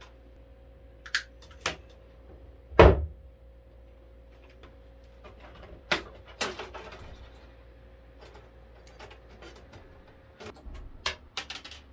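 An aluminium LED channel strip being handled and pressed into place under a cabinet: scattered sharp clicks and knocks, with one heavy thump about three seconds in and a quick run of clicks near the end.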